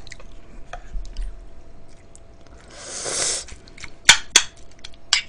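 Close-miked eating of cold mulhoe broth with noodles: small wet mouth sounds, a wet slurp of about a second in the middle, then a few sharp clinks of a metal spoon against a ceramic bowl.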